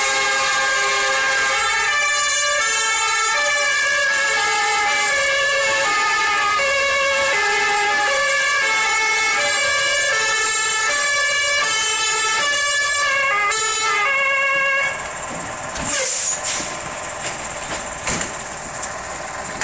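Fire engine siren sounding loudly in quickly alternating tones, which cuts off suddenly about three-quarters of the way through. A steady truck engine and a few knocks remain after it.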